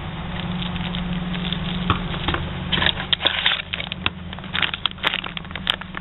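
Crinkling and clicking of plastic packaging being handled as parts are taken out of a kit, in bursts about three seconds in and again near five seconds, over a steady low hum.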